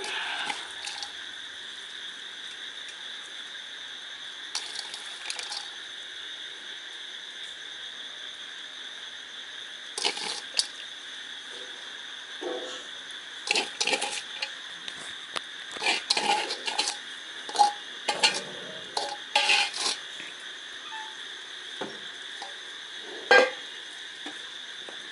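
Metal dishes and pots clinking and knocking now and then, the clinks coming thickest in the middle and one louder knock near the end, over a steady high chirring of crickets.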